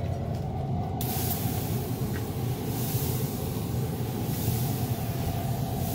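Hand-pump pressure sprayer spritzing a brisket: a steady spray hiss that starts about a second in and swells and eases as the mist goes on. Underneath is the steady low hum of the running pellet grill.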